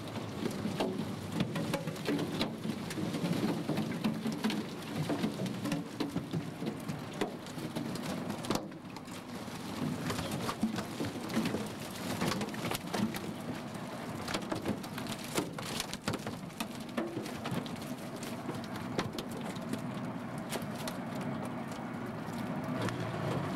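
Herring being shaken out of a gillnet, dropping and flopping onto a bare aluminum skiff deck: a continual run of small slaps and knocks over a low rumble.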